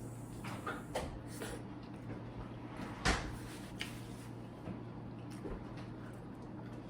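Handling and eating food at the table: a few scattered clicks and knocks, the loudest about three seconds in, over a steady low hum.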